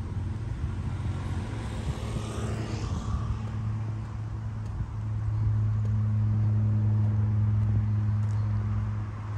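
Road traffic: a steady low engine hum that grows louder about halfway through, with a vehicle passing about two to three seconds in.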